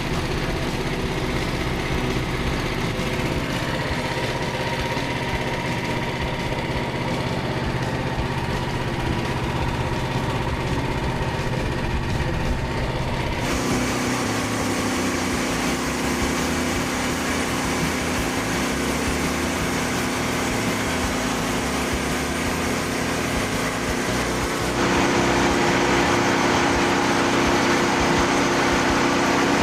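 Frontier portable band sawmill running on its gasoline engine, a steady mechanical drone. About halfway through the sound shifts and gains more hiss, and near the end it gets louder.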